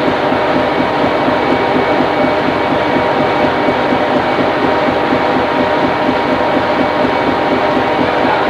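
Steady machinery drone on a stern trawler's working deck, with a few constant humming tones over an even rumble.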